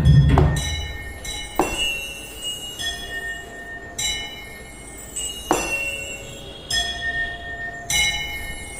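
Roland SPD-SX sampling pad playing back bell-like samples, a new struck tone every one to two seconds, each ringing on; a deep drum hit sounds at the very start.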